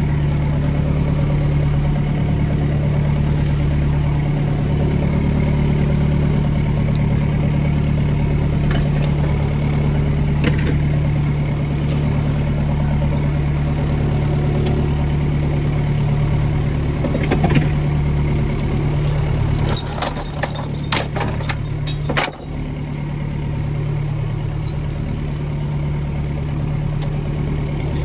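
Boat engine running steadily at low revs, with a few sharp knocks and clatters about two-thirds of the way through.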